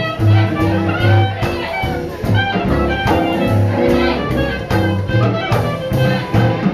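Live swing band playing a jazz tune, with a steady drum beat under a moving bass line and melody.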